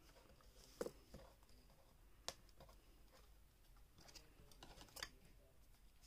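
Faint handling of paper and a pencil on a craft table: a few light, scattered taps and clicks over near silence.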